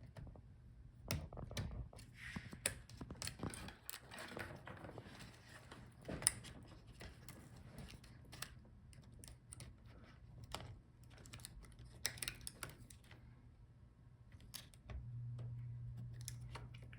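Irregular small clicks, taps and light scrapes of hands working inside a laptop: unplugging the I/O board's cable connector from the motherboard and lifting the board out. A low steady hum underneath steps up in level near the end.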